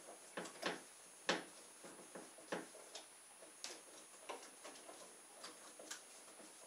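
Irregular sharp clicks, roughly two a second and growing fainter, from the hand-wound drive of a home-made gravity-powered model boat as it is wound up by hand to raise its drive weight.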